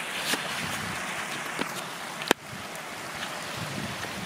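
Small creek running over rocks, a steady hiss of flowing water, with a single sharp click a little over two seconds in.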